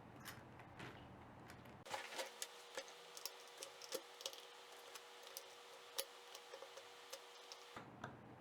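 Light, irregular clicks and taps of small plastic parts being handled on a DVD recorder's remote control during disassembly and cleaning, busier from about two seconds in, with a faint steady hum under them until near the end.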